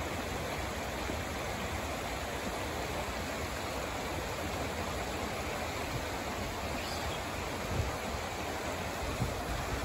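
Steady rush of a shallow mountain river flowing over rocks, with a couple of low thumps near the end.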